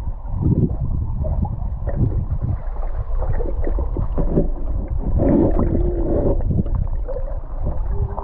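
River current heard through a submerged camera: a muffled low rushing and gurgling, broken by irregular knocks and clicks.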